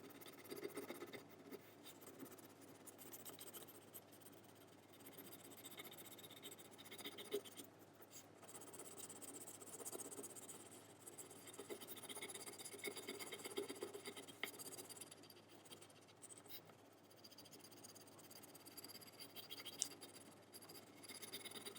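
Faint, uneven scratching of a crayon rubbed back and forth across paper while colouring in a layer of brown, with a few small ticks.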